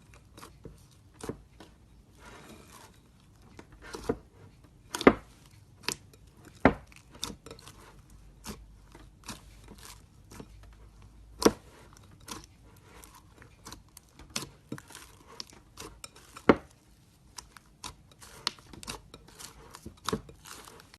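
Slime being poked and squished by hand, giving irregular sticky pops and clicks, with a few much louder pops spread through.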